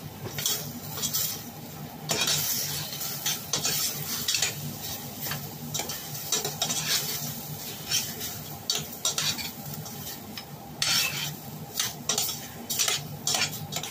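Chicken pieces being stirred in a metal pot on the stove: a utensil scrapes and clinks against the pot in quick irregular strokes, over a light sizzle of the meat browning.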